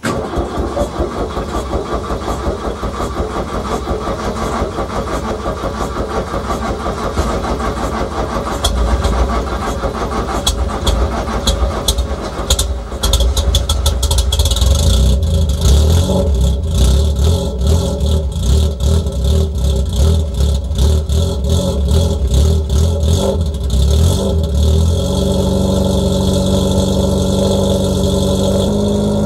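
Volkswagen Golf MK1 1.6 GTI four-cylinder engine running, heard at the tailpipe of its Supersprint exhaust with Martelius headers and homemade silencers. It runs unevenly at first, gets louder and pulses harder through the middle, then settles into a steady idle about 25 seconds in.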